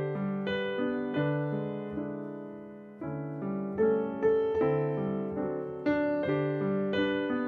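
Background piano music: slow, gentle chords struck about once a second, each ringing on and fading.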